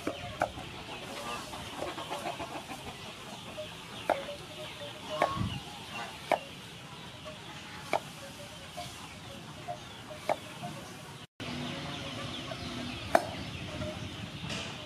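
Knife and cleaver chopping green papaya on a wooden chopping board: sharp single knocks at irregular intervals, about a dozen in all. Chickens cluck in the background.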